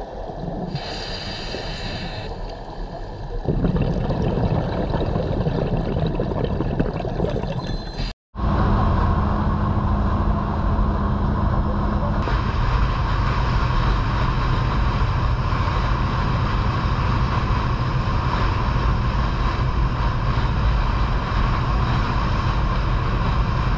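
Steady underwater noise, then, after a brief dropout about eight seconds in, a dive boat's engine running steadily under way, with a low hum, wake splashing and wind.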